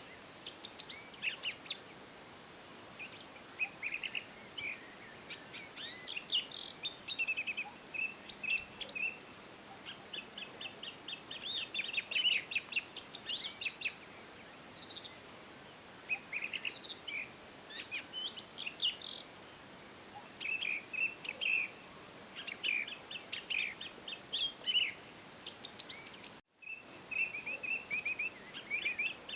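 Several birds chirping and trilling over a steady outdoor hiss, with a split-second dropout near the end.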